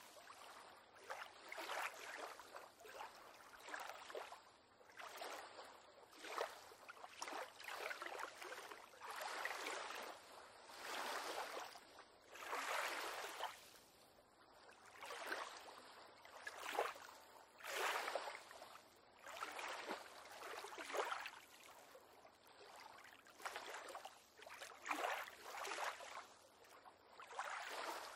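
Small waves lapping and slapping against a pier on calm water, in irregular splashes that come about every one to two seconds.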